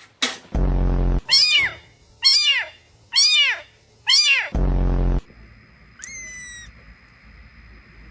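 A kitten meowing four times, about one meow a second, each rising and then falling in pitch. Before and after the meows comes a loud low buzzing tone. After the meows the background changes to a faint steady high whine with one short higher call.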